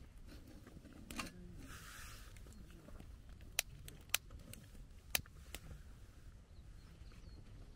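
Faint low background with a handful of sharp, separate clicks or taps spread over several seconds, and a brief soft hiss about two seconds in.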